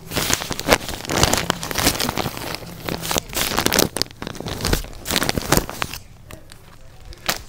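Fingers fumbling and rubbing against a handheld camera's body and microphone: a dense scraping, crackling handling noise that stops about six seconds in, then one sharp click near the end.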